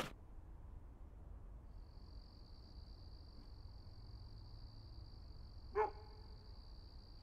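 Quiet evening ambience with a low steady hum and a thin, steady high tone from about two seconds in; a single short dog bark sounds about six seconds in.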